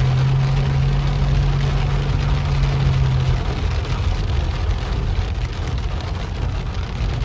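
Heavy rain pelting a car's roof and windshield, heard from inside the cabin, a dense steady hiss with fine ticks. A low steady hum runs beneath it and stops about three seconds in.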